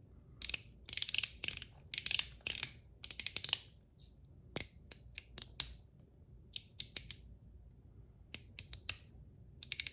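Zirconium mechanical fidget slider being worked by hand, its spring-loaded ball detents giving sharp, light clicks in quick clusters. The clicks are dense in the first few seconds, then sparser, with a short pause before a last run.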